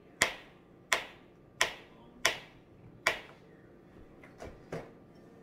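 Kitchen knife chopping through a stick of butter onto a plastic cutting board: five sharp knocks about two-thirds of a second apart, then two fainter ones near the end.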